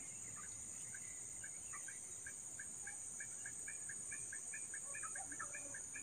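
A bird calling faintly: a run of short, evenly pitched notes, slow at first and speeding up toward the end, over a steady high hiss.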